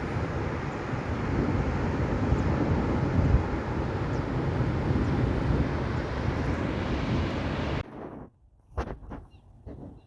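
Steady loud rushing noise outdoors that cuts off abruptly about eight seconds in. Afterwards there are a few faint clicks and short high chirps.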